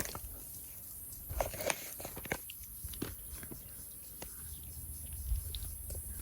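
Vervet monkeys moving about a cage: scattered light clicks, taps and rustles over a low rumble.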